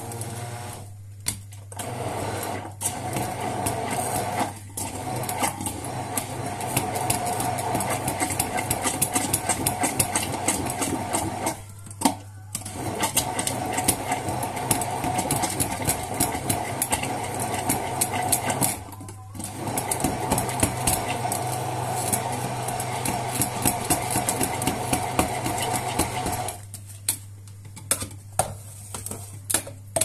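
Electric stick blender running in a glass jug, blending scoops of ice cream into a frothy drink, with a few brief pauses. It stops near the end, followed by a few light knocks.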